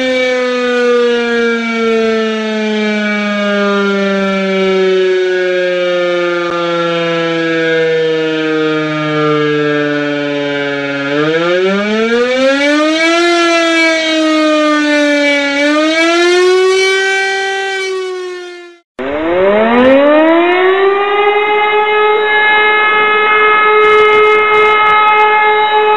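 Electromechanical civil-defence siren sounding the German public warning signal: its tone falls slowly for a long stretch, then swells up and down. It cuts off abruptly about 19 seconds in. A siren then winds up from low to a steady held tone, the start of the storm-flood signal of two long steady tones.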